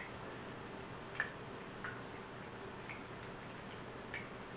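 Meatballs shallow-frying in grapeseed oil: a faint, steady sizzle with a small pop about once a second. The oil is very calm and not spattering.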